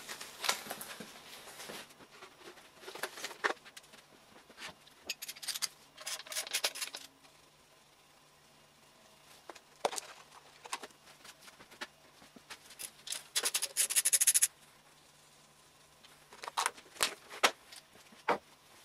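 Hand tools and metal parts being worked on an engine's bottom end: scattered metallic clicks, knocks and scraping, with two bursts of rapid ticking, the longer about two-thirds of the way through.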